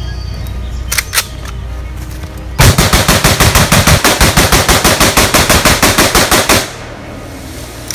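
A rifle fires a rapid, evenly spaced string of shots lasting about four seconds, beginning a little over two and a half seconds in. Before the shots there is a low background music drone and two sharp clicks about a second in.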